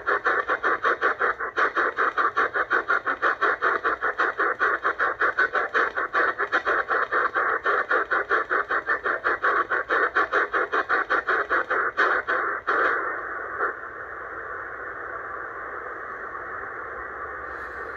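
Shortwave receiver's upper-sideband static chopped into rapid, even pulses, about five a second, as the ATS-25 DSP receiver mutes its audio on each tuning step. About thirteen seconds in the tuning stops and a steady hiss of an empty channel is left.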